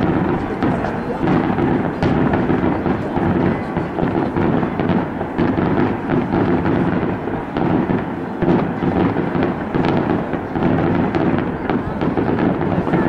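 Daytime fireworks display: a dense, continuous barrage of bangs from shells and firecrackers bursting in white smoke. The reports come so fast that they run together without a pause.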